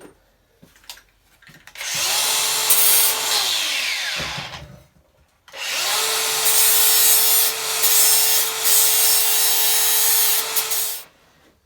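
A handheld power tool spins up and cleans up the welded repair on a cast iron exhaust manifold, its motor whine under a scratchy abrasive noise. It runs twice: once for about two and a half seconds starting about two seconds in, then again from about five and a half seconds until near the end.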